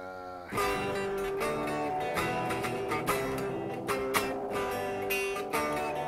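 Les Paul-style electric guitar strumming chords, starting about half a second in, with roughly two strums a second.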